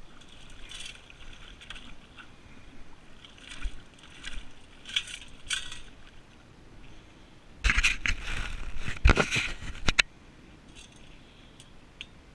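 Digging among rocks and wet sand: several short scrapes, then a burst of scraping and clattering of stones lasting about two seconds, with a few sharp knocks near its end.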